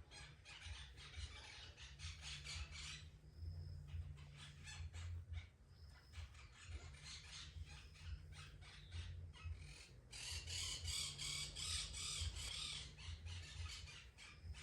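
A cat grooming itself, its rough tongue licking its fur in quick rasping strokes, about five or six a second. The strokes come in runs broken by short pauses and are loudest about two-thirds of the way through.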